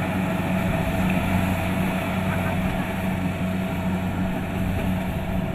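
Kubota DC-70 Plus rice combine harvester running steadily, its diesel engine giving a constant low drone.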